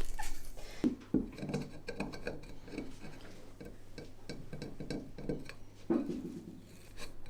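A vase pot and other hard objects being handled: scattered light clinks, knocks and rubbing, irregular throughout.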